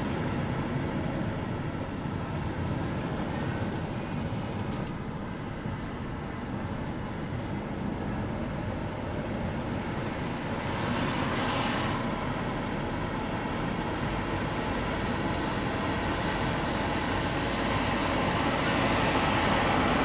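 Steady road and engine noise of a car driving through town. It swells briefly about halfway through and grows louder near the end.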